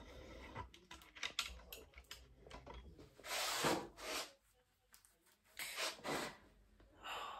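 Faint clicks and knocks of a camera being handled and set in place, then rustling of clothing as jeans and a belt are adjusted, with a few longer rustles about three and six seconds in.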